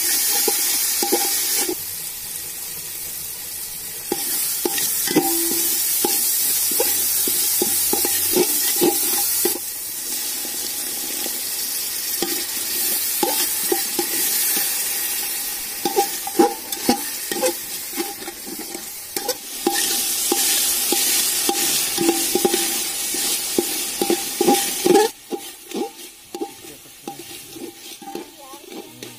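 Metal spatula scraping and knocking against an aluminium pot, stirring curry masala that sizzles in hot oil. The sizzle drops away near the end, leaving the scrapes.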